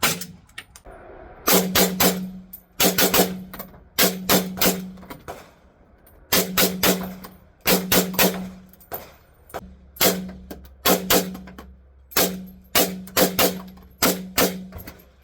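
Strings of suppressed 7.62x39 rifle shots, two to four rounds about a third of a second apart, with short pauses between strings.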